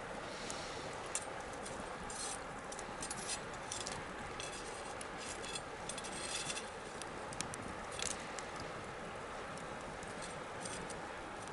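Wood bonfire crackling: irregular sharp pops and snaps over a steady hiss. The pops come thickest through the middle.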